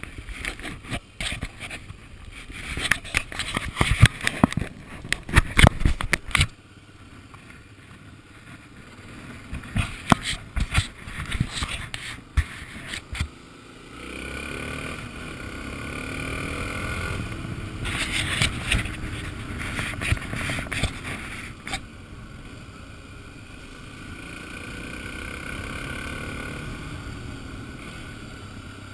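Motorcycle engine running on the move, heard through heavy wind buffeting on the microphone. For the first several seconds the wind blasts are loudest; later the engine note rises and falls as the bike speeds up and slows.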